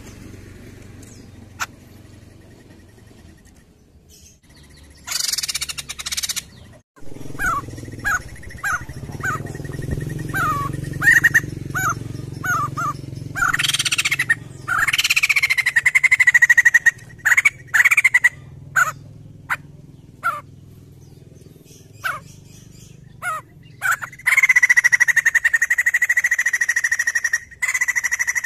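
White-crested laughingthrush calling: a run of quick, short falling notes starting about eight seconds in, then long held notes, the longest lasting the final four seconds, with sharp clicks scattered between.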